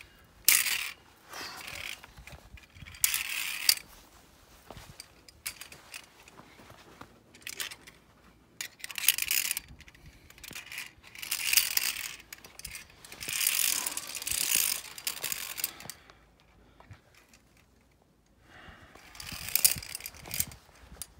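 Via ferrata climbing gear, metal carabiners clinking and scraping, with footsteps on loose limestone rock. The sounds come in irregular bursts of about a second, with a quiet spell about three quarters of the way through.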